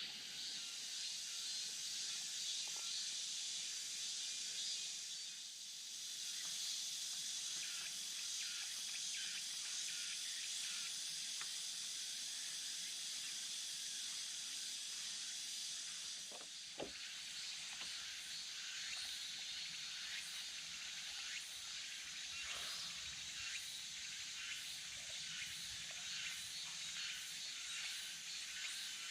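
Steady chorus of insects in a forest, a continuous high pulsing buzz, with one faint knock about seventeen seconds in.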